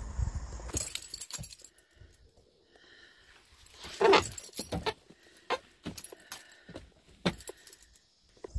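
Scattered knocks and light metallic clinks of movement and handling among split firewood: about a dozen sharp knocks spread over several seconds, the loudest about four seconds in.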